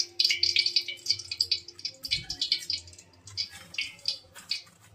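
Hot oil crackling and spitting in a wok as pindang fish are fried. The crackle is dense at first and thins out toward the end, with a dull bump about two seconds in.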